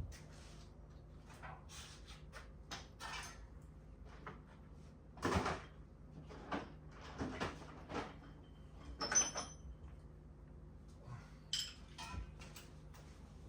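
Irregular clinks and knocks of metal sockets and hand tools being picked out and tried while searching for one that fits a spark plug, with a short metallic ring about nine seconds in.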